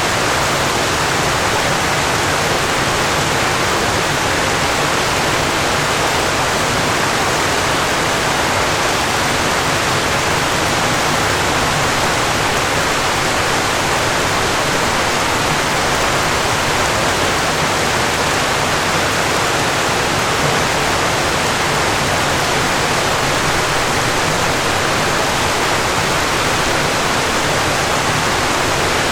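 Falling water rushing steadily, an even, unbroken hiss with no splashes or changes standing out.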